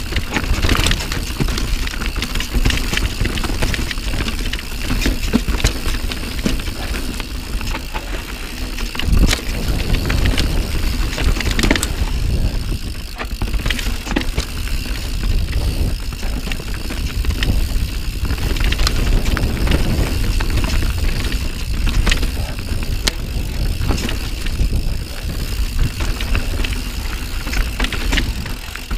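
Santa Cruz Nomad full-suspension mountain bike ridden fast downhill on a dirt trail: tyres rolling over dirt and roots under a constant low rumble, with frequent sharp knocks and rattles from the bike.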